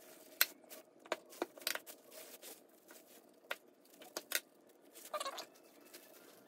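A knife cutting into a rubbery casting mold as it is split and pulled apart: scattered sharp clicks and crackles, with a short rough tearing scrape about five seconds in.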